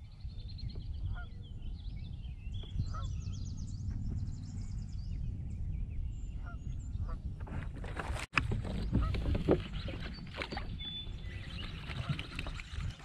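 Waterbirds calling over and over during the first few seconds, above a steady low rumble. After a brief cut-out about eight seconds in, a run of sharp knocks and clatters from gear being handled on the kayak.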